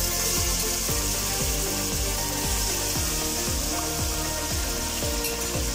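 Raw chicken pieces sizzling steadily in hot oil in a pressure cooker, under background music with a steady beat.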